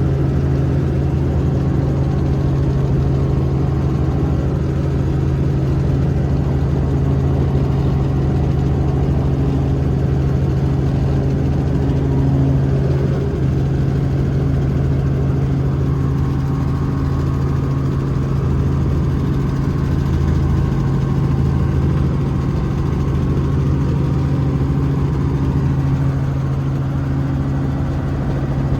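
Helicopter in flight: a steady drone of engine and rotor, with a strong low hum and a few fainter steady tones above it.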